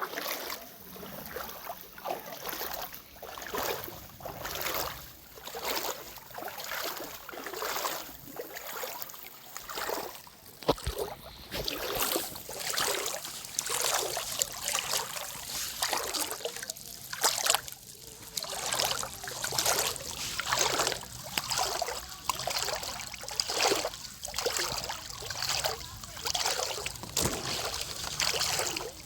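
Footsteps wading through shallow water, a splashing swish with each step, about one a second.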